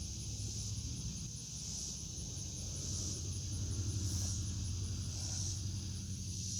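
Steady high chirring of insects with a fast, even pulse, over a low rumble that swells through the middle and eases off.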